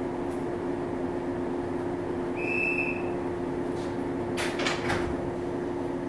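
A JR East 115 series electric train standing at a platform, its onboard equipment giving a steady two-note hum. A short high beep comes about two and a half seconds in, and a quick run of sharp clacks comes about four and a half seconds in.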